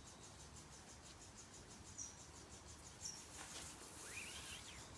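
Near silence: faint outdoor background with steady, high-pitched insect chirping, and a couple of soft ticks from paracord being handled.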